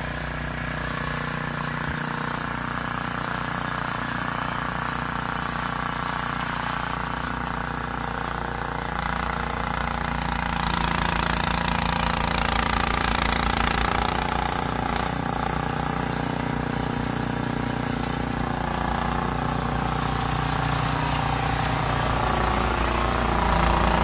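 Two-stage snowblower's engine running steadily while it chews through snow and throws it out of the chute. The sound grows louder near the end as the machine comes closer.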